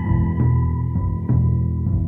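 Ambient instrumental background music: a low pulse about once a second under long held high notes that glide slightly up and then hold.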